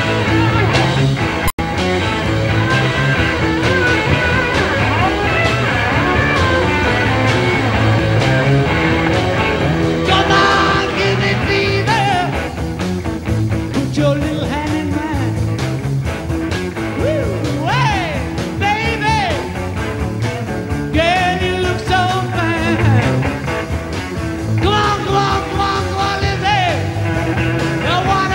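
A live rock and roll band playing: electric guitars, bass and drums, with a lead guitar bending notes and a singing voice. The sound drops out for an instant about a second and a half in.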